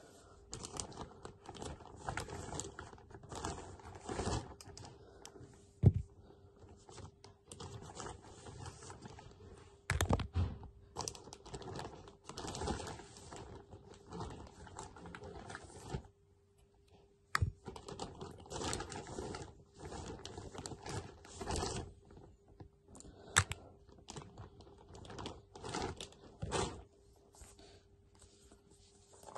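Things being handled and rummaged close to the microphone: irregular clicking, tapping and rustling, with a few sharper knocks. A faint steady hum sits underneath.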